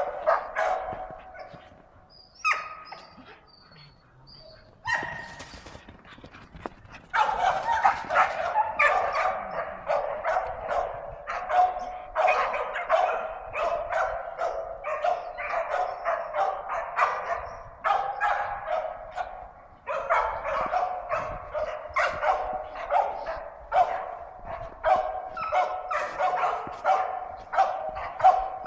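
Bedlington terrier barking at a wild boar it is holding at bay, in fast, nearly continuous strings of barks. The first several seconds have only a few scattered yelps, and there is a brief pause about two-thirds of the way through.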